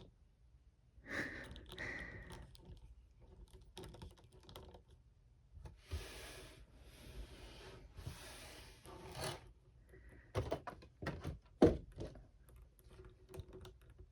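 Clicks and light knocks of a hard plastic action figure being handled and posed, with a few seconds of rustling in the middle and a sharper knock near the end.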